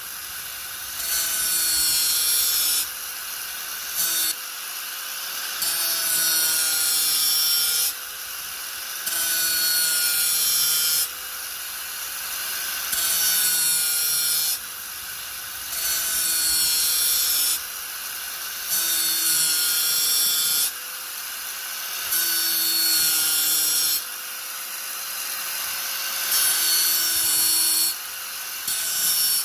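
Angle grinder running without pause and pressed into the work about every three seconds. Each cut lasts a couple of seconds and brings a louder, harsher grinding noise. Between cuts it drops back to the plain whine of the motor spinning free.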